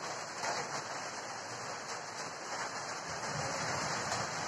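Steady rain falling, an even constant hiss.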